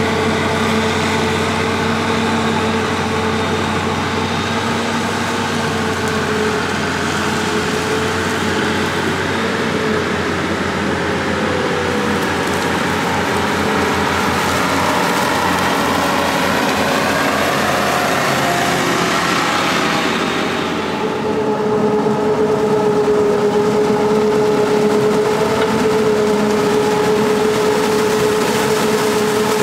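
Heavy diesel farm machinery of a corn silage harvest running steadily, with a steady whine over the engine sound. About two-thirds of the way through the sound dips briefly and the whine comes back stronger.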